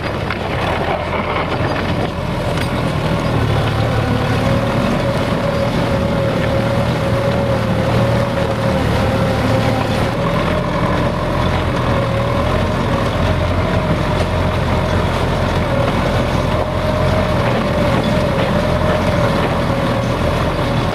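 Belarus MTZ-82 tractor's four-cylinder diesel engine working steadily under load, pulling a three-bottom mounted plough through frozen, snow-covered soil, with a steady whine over the engine noise.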